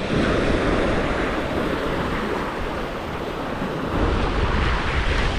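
Sea waves washing onto a beach, with wind buffeting the microphone that grows stronger about four seconds in.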